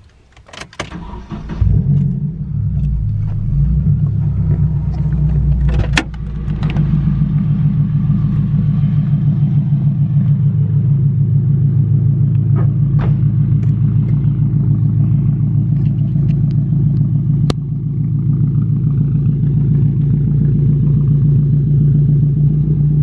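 Nissan 240SX (S14) fitted with a dual blast-pipe exhaust tip, starting up about two seconds in and then idling steadily with a raspy exhaust note.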